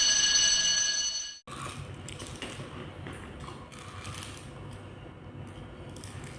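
A loud, steady ringing tone, like an electronic bell or alarm, that cuts off abruptly about a second and a half in, followed by quiet room noise with faint rustles and clicks.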